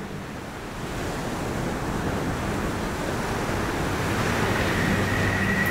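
Ocean surf: a steady rushing wash of waves that slowly swells. Near the end a low hum and a faint steady high tone come in under it.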